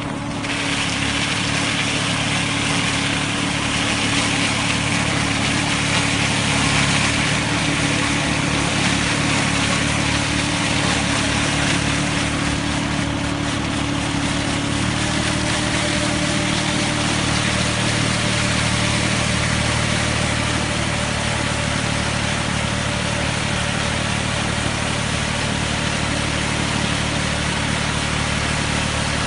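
Compact utility tractor's engine running steadily while it drives a front-mounted hydraulic verge trimmer, whose rotating disc cuts along a grass edge. A held tone in the machine's sound shifts up in pitch about halfway through.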